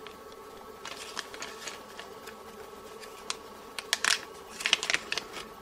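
Clear plastic zip-lock bag being handled and its zip seal pulled open: soft crinkling with scattered crackles, thickest about four to five seconds in as the seal comes apart.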